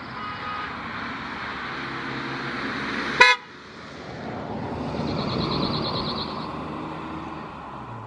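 A single short, loud vehicle horn toot about three seconds in, over steady background traffic noise. Past the middle comes a short, dry trill of rapidly repeated high notes: a male cirl bunting's rattling song.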